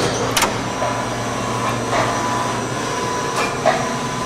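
Okuma & Howa Millac 438V CNC vertical machining center running its program: a steady mechanical hum with a constant whine, broken by a few short knocks.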